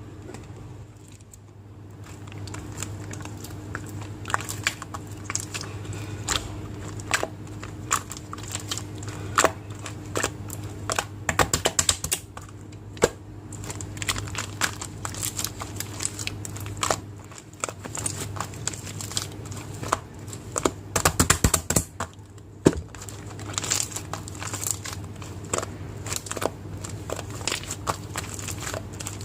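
Slime being squeezed and kneaded by hand, making a stream of sticky clicks and small pops, with quicker flurries of clicks about 11 and 21 seconds in. A steady low hum runs underneath.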